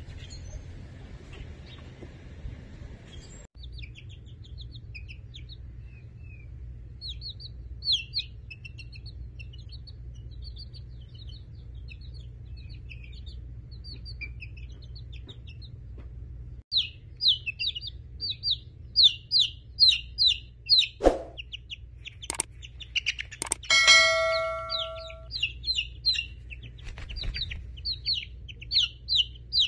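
Young chickens peeping: short, high peeps, faint at first, then loud and rapid a little past halfway. About two-thirds of the way through, a bell-like ding rings for a second and a half, just after a couple of sharp knocks.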